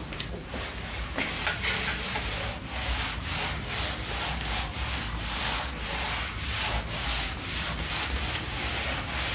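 Felt whiteboard eraser wiping marker writing off a whiteboard: quick back-and-forth scrubbing strokes, about two to three a second.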